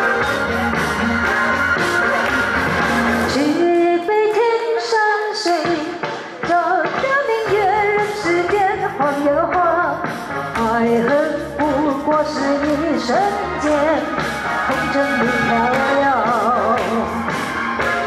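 Live female vocal sung through a handheld microphone over a rock backing track. The bass drops out for a few seconds about four seconds in, then the full band sound returns.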